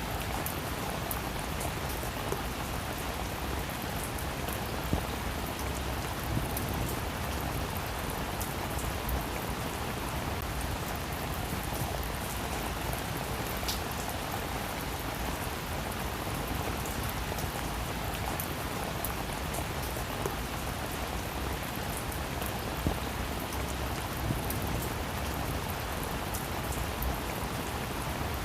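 Steady rain falling on a roof, an even hiss of rain with many individual drops ticking and a few louder drips now and then.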